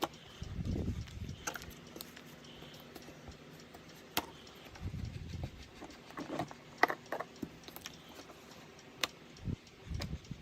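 Slime being squished and stretched by hand: soft low squelches with scattered small clicks and pops.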